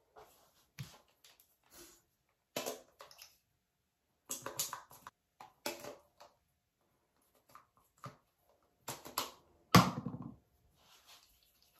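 Handling of plastic skincare bottles: scattered clicks, taps and rustles as caps and pumps are worked and bottles are picked up and set down, with a louder knock about ten seconds in.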